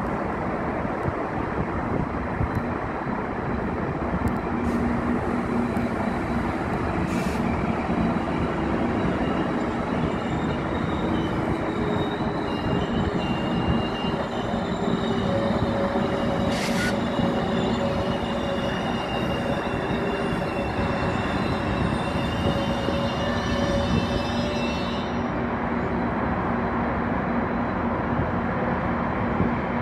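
Trains running in a rail yard, a steady rumble of wheels on track. From about ten seconds in, high wheel squeal rings over it, then cuts off abruptly near twenty-five seconds.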